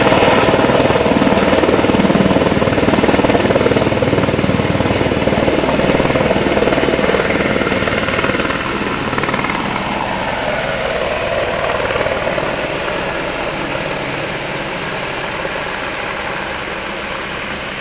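Firefighting helicopter's rotor and engine running, with a fast, even rotor beat, growing gradually fainter.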